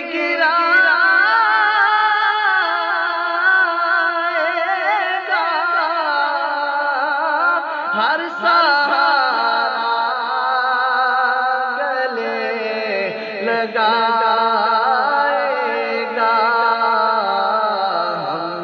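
A man singing an Urdu naat unaccompanied, holding long wavering notes with melismatic runs, his voice dropping to a lower register about twelve seconds in.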